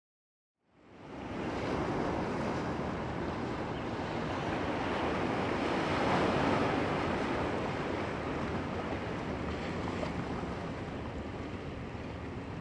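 Sea surf: waves breaking and washing in on a rocky shore, a steady rush that fades in from silence about a second in and is loudest around the middle.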